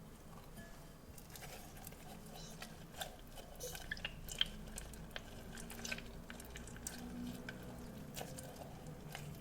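Squishy, crackling handling sounds of a stress ball: soft squishing with many scattered small clicks and crackles.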